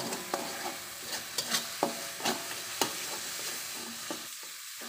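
Spice paste of ground chillies, shallots and garlic sizzling in oil in a metal wok, being sautéed until fragrant. A metal spatula scrapes and taps against the pan at irregular intervals as the paste is stirred.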